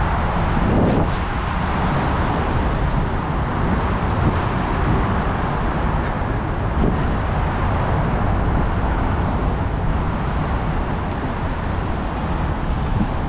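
Rainy city street: a steady hiss of rain and traffic noise, with a deep rumble underneath.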